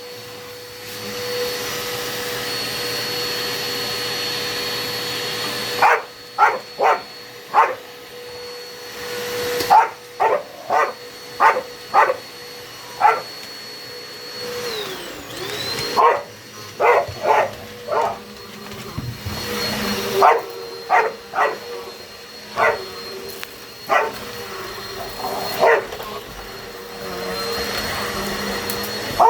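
Vacuum cleaner motor running with a steady whine while a dog barks at it again and again in quick groups of short, sharp barks. About halfway through, the motor's pitch sags and then comes back up.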